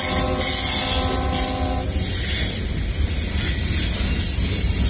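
Loaded freight cars of a CSX manifest train rolling past close by, a steady rumble of wheels on rail. A held, many-toned sound over it cuts off about two seconds in.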